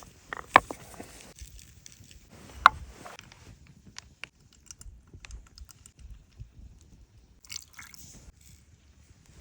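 Chewing and crunching while eating, with irregular small clicks and two sharp, louder snaps about half a second and two and a half seconds in.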